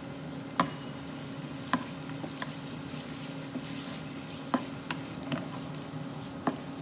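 Chopped onion and dried red chilies frying in oil with a steady sizzle, stirred with a slotted spatula that knocks and scrapes against the ceramic-lined pan about seven times. The onion is being fried until it changes colour for the tadka.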